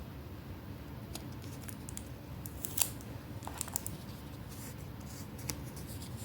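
Scissors snipping through paper in a series of short, irregular cuts, the sharpest a little under three seconds in.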